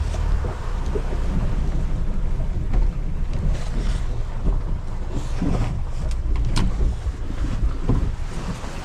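Wind buffeting the microphone over water lapping around a small boat, with a few sharp knocks and splashes in the second half.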